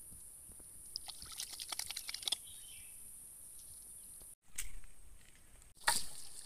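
Outdoor waterside ambience: a steady high-pitched hiss, a quick run of faint clicks, then two short, louder noises that start abruptly after cuts in the sound, the louder one near the end.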